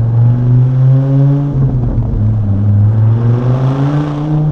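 2006 Dodge Viper SRT-10's 8.3-litre V10 accelerating hard, its revs climbing, dropping with an upshift about a second and a half in, then climbing again until another shift near the end.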